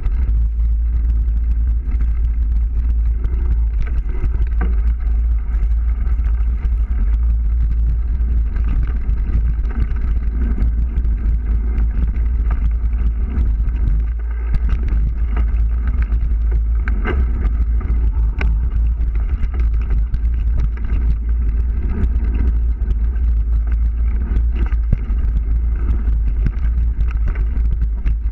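Mountain bike riding fast down a dirt forest trail: heavy wind rumble on the camera microphone with the rattle and knocks of the bike over the ground.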